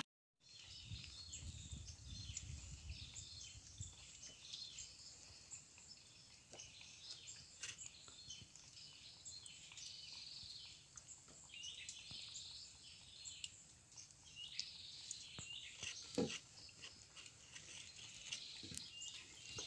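Faint chorus of many small, high, chirping animal calls, repeated over and over, with a low rumble underneath for the first few seconds and a few sharp clicks.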